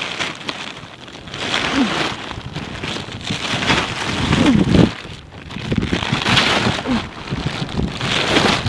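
Gale-force wind and rain, the noise swelling and easing in gusts about four times.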